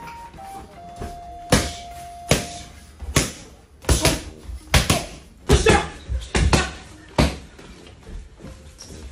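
Boxing gloves punching focus mitts: a dozen or so sharp smacks, first singly, then in quick combinations of two and three about halfway through. Faint music notes sound under the first few seconds.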